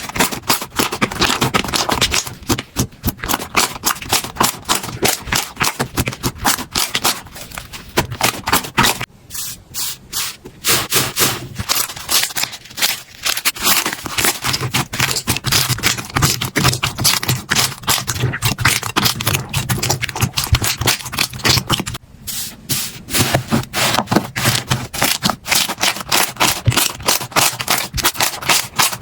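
Hands squeezing, poking and stretching slime, making dense, rapid crackling and popping clicks with brief lulls about nine and twenty-two seconds in.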